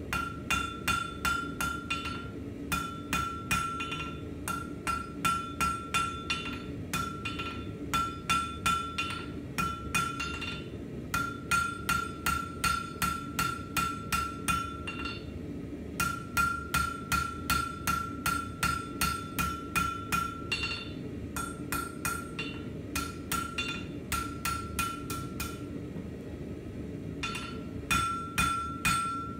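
Hand hammer striking hot steel on an anvil, about three blows a second in runs broken by short pauses, with the anvil ringing after each blow. The smith is flattening and evening out the edges of a forged blade blank. A steady low rumble lies underneath.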